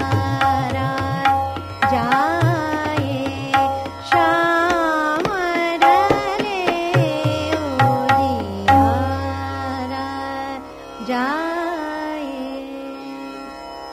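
Hindustani classical music in Raag Hansdhwani: a voice sings ornamented, gliding melodic phrases over tabla strokes. The tabla stops about nine seconds in, and the melody continues more quietly to the end.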